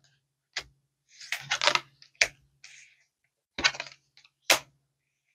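Tarot cards being shuffled by hand: a series of sharp card snaps and slaps, with a quick flurry about a second in and single snaps spaced out after it.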